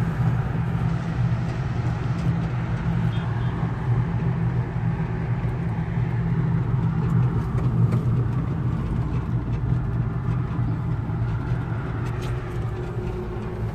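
Steady low hum and rushing inside a moving cable-car gondola as it climbs along its cable.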